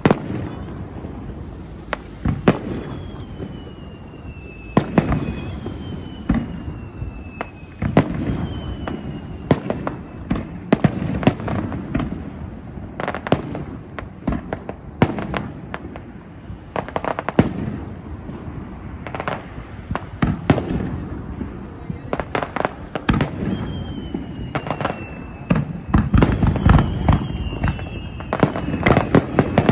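Aerial firework shells bursting one after another with sharp bangs, several of them trailing whistles that fall in pitch, over a steady low rumble. The bangs come thickest near the end.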